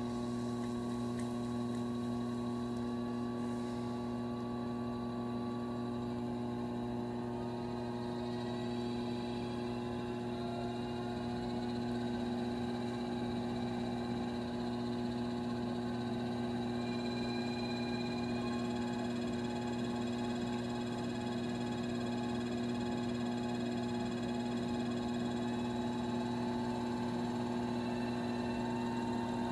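Electric potter's wheel motor humming steadily as the wheel spins, a few fainter tones in it drifting slightly in pitch.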